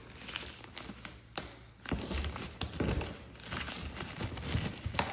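Unpacking and handling sounds: scattered taps and knocks, a sharp click about a second and a half in, and several low thumps as the boxed unit and its packaging are moved.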